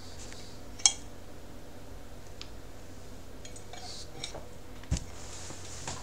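Low steady hum with a sharp click about a second in, a few faint ticks, and a low thump near the end.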